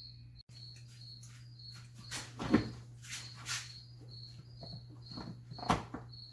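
A cricket chirping steadily in short high pulses, two or three a second. Over it come a few clunks and scrapes of hand work, loudest about two and a half seconds in and again near the end, and a steady low hum.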